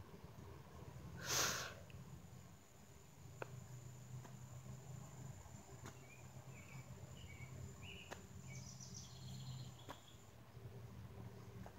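Quiet outdoor insect drone, a steady high-pitched tone that stops near the end, with a few short chirps in the second half and a faint low hum underneath. A brief loud rustle about a second in.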